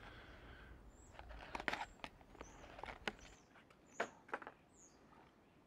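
Faint clicks and light crackling of hands handling a small plastic digital fishing scale and its clear plastic blister pack, with short high bird chirps repeating in the background.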